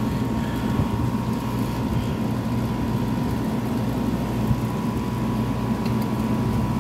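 Through-the-wall packaged air conditioner running: a steady low fan-and-compressor hum with a thin, steady whine above it.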